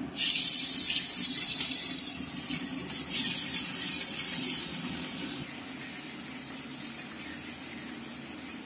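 Prawns going into hot mustard oil in a pan: a sudden loud sizzle right at the start. It dies down in steps over the first few seconds to a steadier, quieter frying hiss.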